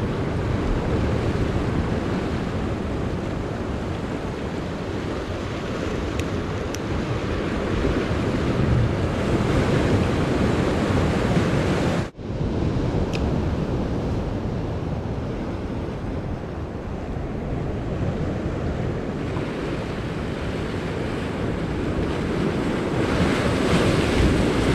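Ocean surf washing and churning against the jetty rocks, with wind buffeting the microphone. The sound cuts out for an instant about halfway through.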